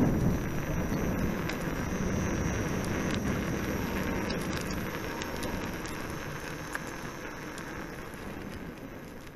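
Rolling noise of a homebuilt electric unicycle's tyre on asphalt, heard close to the wheel: a steady low rumble with wind, a faint high steady tone and small clicks. It slowly fades out over the second half.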